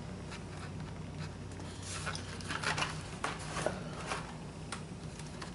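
Light rustling and small clicks of packaged Hot Wheels die-cast cars being handled and set down, over a steady low hum.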